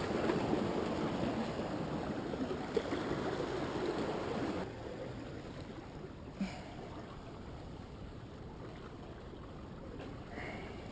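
Ocean surf washing on the shore, with a steady rush that drops off abruptly to a quieter wash about four and a half seconds in, and a single short knock a couple of seconds later.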